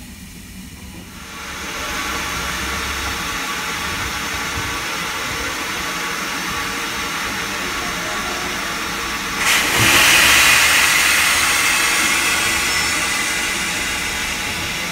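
Steam hissing out from beneath BR Standard Class 4 steam locomotive 75014, a steady hiss that swells in about a second and a half in, surges loudest about nine and a half seconds in, then slowly dies away.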